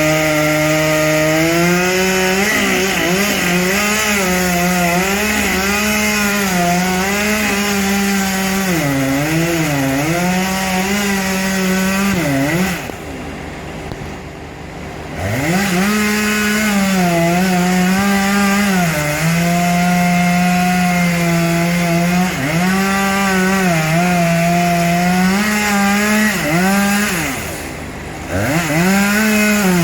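Chainsaw running at high revs while cutting wood, its pitch sagging and recovering again and again as the chain loads in the cut. It drops back to a low idle for a couple of seconds about 13 seconds in, and briefly again near the end, before revving back up.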